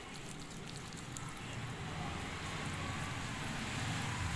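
Sugar-coated half tomato scrubbing over wet skin: a soft, gritty rubbing with faint crackles of sugar grains. A low background rumble grows louder as it goes.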